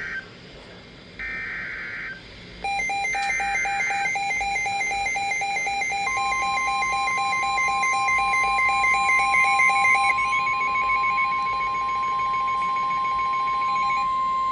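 Emergency Alert System warning signal. It begins with three short buzzy data bursts of the encoded SAME header. From about 3 s a rapidly pulsing electronic alarm tone starts, and about 6 s in it is joined by a steady single-pitch warning tone of about 1050 Hz, the National Weather Service alert tone, which holds to the end.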